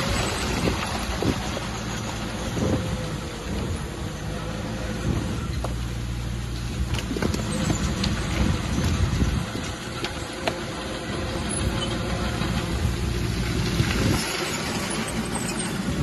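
Bulldozer's diesel engine running steadily, with scattered clanks and knocks from the machine at work.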